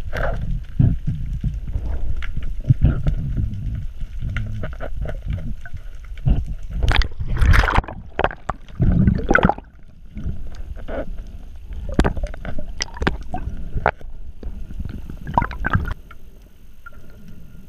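Sea water sloshing and gurgling around the camera, with a constant low rumble and irregular louder splashes, the biggest about halfway through; it quietens near the end.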